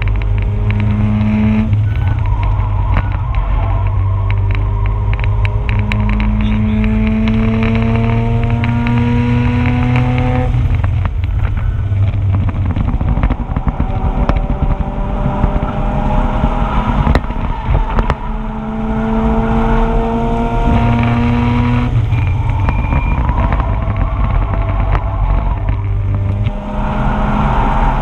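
Mazda RX-8's two-rotor rotary engine under hard acceleration on a race track. Its pitch climbs steadily for several seconds at a time, then breaks off for gear changes or braking, with a sharp rattle of the GoPro camera mount over it.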